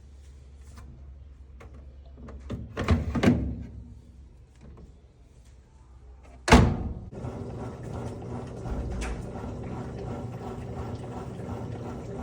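A few knocks, then one loud bang about six and a half seconds in, like a washing machine lid or door shutting. A steady rushing sound follows, typical of a washing machine beginning to fill with water.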